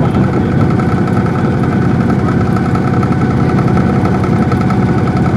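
Boat engine running steadily at low speed, an even mechanical hum with no change in pitch.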